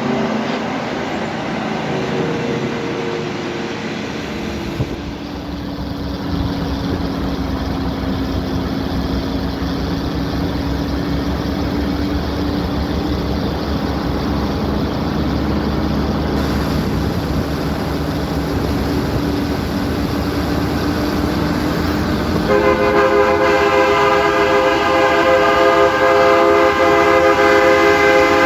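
Diesel engine running steadily, its pitch drifting slightly. About three-quarters of the way through, a loud multi-note air horn chord sounds and is held for about six seconds.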